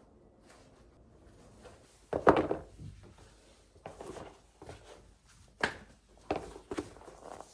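A series of knocks and thuds of objects being handled, the loudest about two seconds in, followed by several lighter knocks.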